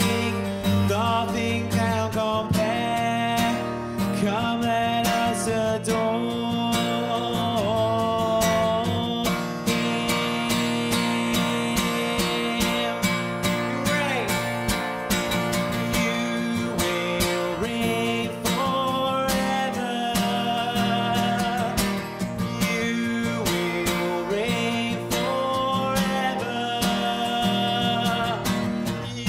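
Worship-band music led by strummed acoustic guitar, playing continuously with a steady rhythm.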